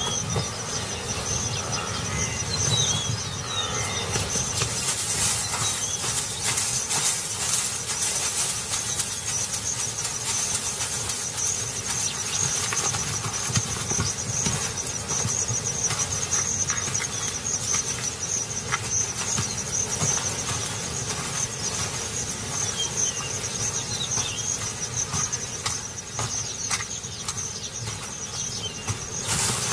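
Insects chirring in a steady high drone, over rustling and wing flapping from a male ostrich displaying its wings.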